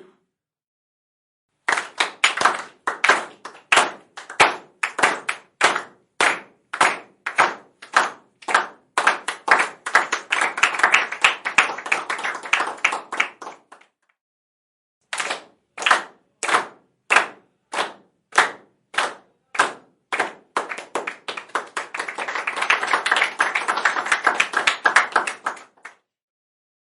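Small crowd clapping in unison, slow and steady at about two claps a second, speeding up until it breaks into loose, scattered applause. After a short pause about halfway, a second round goes the same way.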